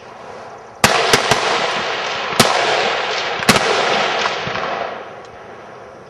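Rifle shots from competitors firing along the line during the standing slow-fire stage of a high power rifle match: about five sharp cracks, three close together about a second in, then one more at each of the next two seconds, over a rushing noise that dies away near the end.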